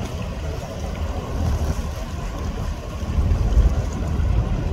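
Low, uneven rumble of the car ferry M/S Oslofjord's engines and propeller wash close by, growing louder toward the end, with wind buffeting the microphone.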